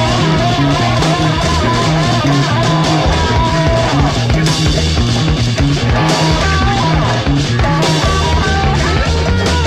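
Rock music track: electric guitar over a stepping bass line and a steady drum beat.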